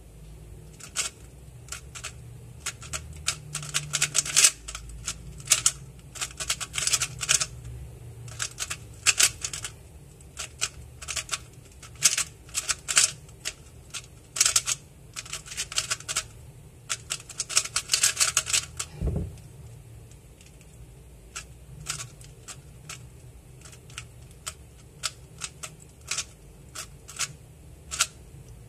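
Weilong WRM 2019 3x3 speedcube, freshly lubed, turned rapidly in a timed solve: fast runs of plastic clicks as the layers snap round. There is a single low thump about two-thirds of the way through, and after it the turning is slower and sparser.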